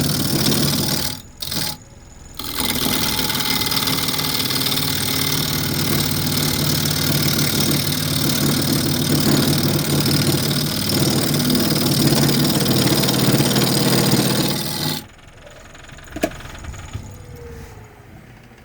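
Wood lathe running with a carbide tool cutting into a spinning bowl blank to bring it round: a steady hum under a continuous cutting hiss. The sound drops out twice briefly near the start. About 15 seconds in the cutting and hum stop, leaving a much quieter sound with a single click.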